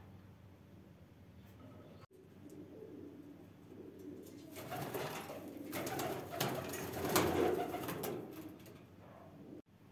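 Domestic pigeons cooing, starting about two seconds in, building to loudest in the middle and fading near the end.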